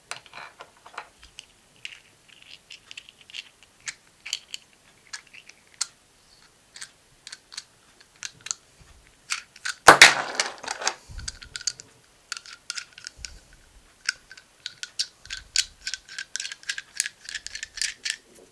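Light clicks and taps of small machined metal RC car parts, an extended wheel hub, being handled and fitted onto a 1/5-scale Losi 5T. There is a louder clatter about ten seconds in, and a faint steady high tone runs under the clicks near the end.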